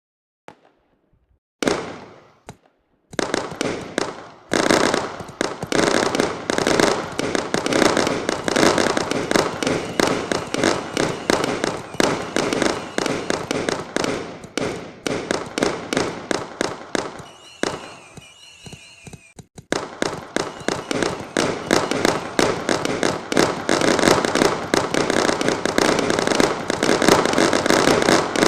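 Fireworks and firecrackers going off in a dense, rapid string of bangs and pops. The bangs begin about two seconds in, ease off briefly in a short lull with a few whistling tones late in the middle, then pick up again just as densely.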